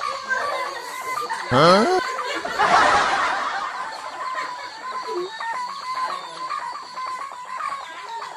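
A rooster crowing about two and a half seconds in, over a steady high tone.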